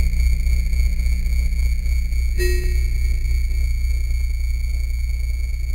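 Slowed-down children's music: long held tones over a loud droning bass, moving to a new chord about two and a half seconds in.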